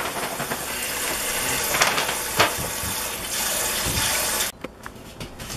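Kitchen tap running into a water-filled stainless steel sink while a glass jug is scrubbed by hand under the stream, with a couple of brief knocks. The running water cuts off about four and a half seconds in.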